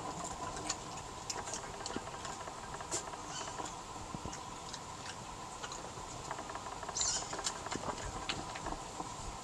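Two European badgers crunching peanuts and rice from a plastic tray: irregular crunching and clicking of nuts, with a louder rustling burst about seven seconds in, over a faint steady hum.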